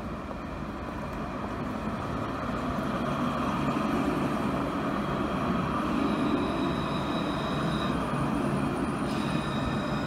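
Luas light-rail tram (Alstom Citadis) running close by on street track: a steady rumble of wheels on rail that grows louder over the first few seconds. Thin high whining tones join about six seconds in, and more join about nine seconds in.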